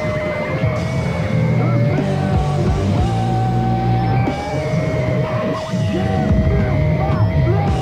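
Punk rock band playing on a demo cassette recording: distorted rock instruments with long held notes, and a yelled vocal.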